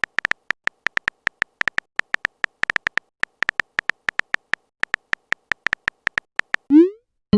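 Rapid, slightly irregular taps of a phone keyboard typing sound effect, about five short clicks a second. Near the end a short rising swoop begins a message notification sound.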